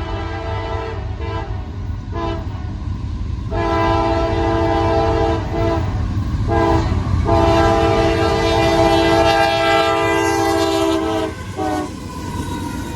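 Diesel locomotive's multi-tone air horn sounding for a grade crossing: a few short toots, then long blasts with a short toot near the end, over the low rumble of the approaching train.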